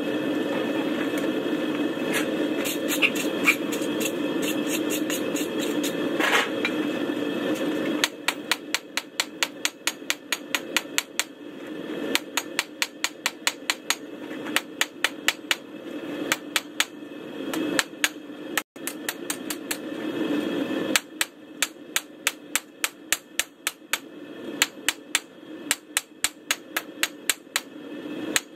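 Blacksmith's hammer striking hot steel on an anvil while forging a tong blank, in quick runs of blows about three a second with short pauses between runs. For the first several seconds a forge's steady low rumble is the main sound, with only a few strikes.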